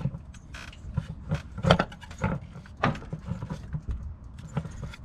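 Irregular metallic clicks and knocks of hand tools and parts being handled while the engine's belt and hoses are refitted, about a dozen separate strikes.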